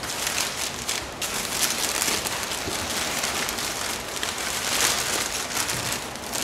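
Crumpled packing paper rustling and crinkling as it is pulled off a wrapped item and out of a cardboard box, a continuous crackle that comes in louder spells.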